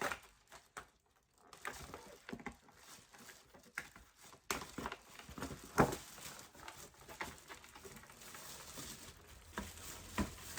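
Handling of a tablet folio case's retail packaging: scattered clicks, taps and soft rustling as the case is slid out of its box, with one sharper tap about six seconds in.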